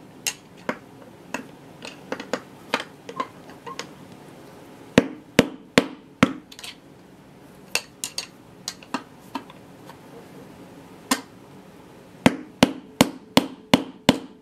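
Hammer blows on a screwdriver used as a drift against the drum bearing pressed into an LG washing machine tub's rear hub: sharp metallic knocks with a short ring, in uneven runs, the hardest about five seconds in and a quick series near the end. The bearing is seized fast in its housing and does not shift.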